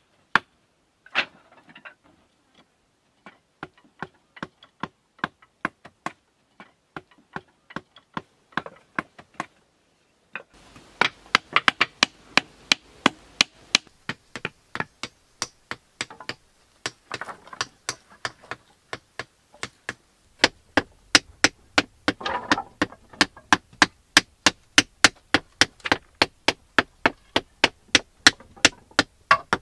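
Repeated sharp knocks of wooden stakes being hammered into the ground, sparse at first and then steady at about two a second from around ten seconds in.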